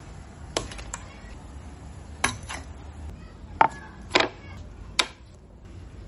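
About seven sharp wooden knocks and clacks spread over a few seconds, as kitchenware is handled and set down on a wooden tabletop, among them a round wooden cutting board.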